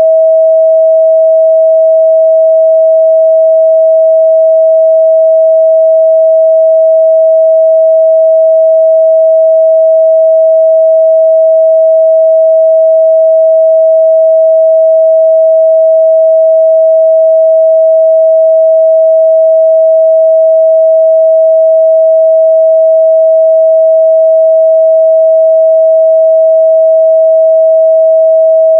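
A steady 644 Hz sine-wave test tone, a single pure mid-range pitch held unchanged at a constant loud level.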